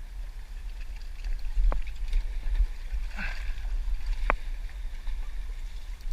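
Wind buffeting the microphone as a steady low rumble, with two sharp clicks, one a little under two seconds in and one past four seconds.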